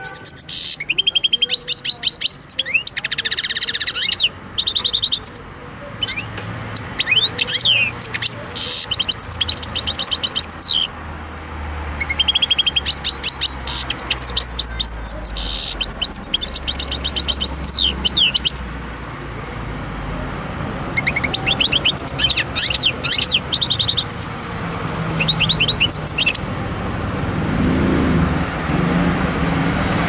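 Goldfinch × canary hybrid (mule) singing: bursts of fast trills and twittering notes with brief pauses, stopping about 26 seconds in. A low rumble builds near the end.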